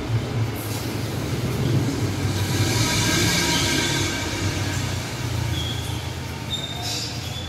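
A machine running steadily with a low hum, and a hiss that swells about two seconds in and fades after about four seconds.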